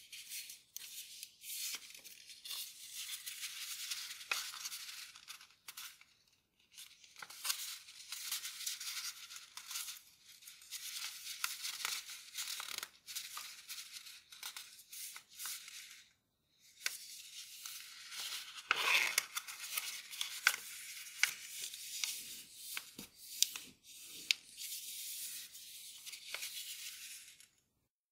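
A sheet of Grainy origami paper rustling and crackling as hands fold and crease it, with sharp crinkles as folds are pressed down. The rustling stops briefly twice, about six and sixteen seconds in.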